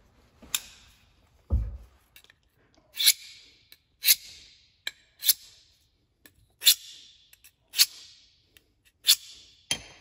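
Buck 346 Vantage folding knife's blade drawn stroke by stroke along a handheld sharpening rod, about nine hissing metal-on-rod scrapes at roughly one a second, each fading quickly, with a low thump about one and a half seconds in. The blade is being sharpened freehand.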